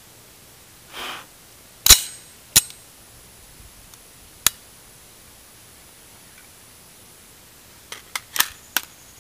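AR-15 rifle firing 5.56×45 mm rounds: a sharp shot about two seconds in, another just after it, a third near the middle, then a quick cluster of smaller sharp cracks near the end.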